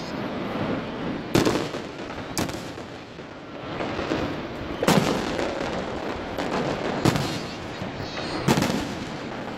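Aerial fireworks shells bursting: about five sharp bangs a second or two apart, each trailing off in an echoing rumble, with lighter crackle between them.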